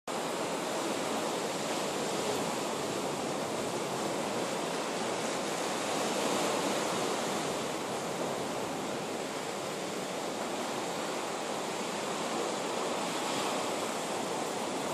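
Steady rush of sea surf on the beach, swelling slightly about six seconds in.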